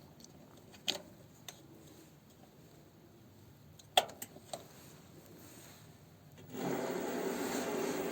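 A few sharp clicks and knocks from a WM210V-400 benchtop metal lathe, then about six and a half seconds in its motor and spindle start and run with a steady whirring hum.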